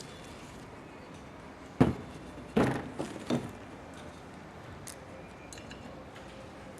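A few sharp knocks of parts being handled and set down on a workbench: one just before two seconds in, then three more in quick succession.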